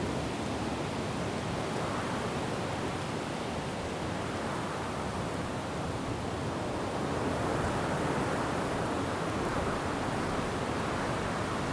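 Wind blowing through forest trees, a steady rushing of leaves and branches that swells in gusts about two seconds in and again past the middle.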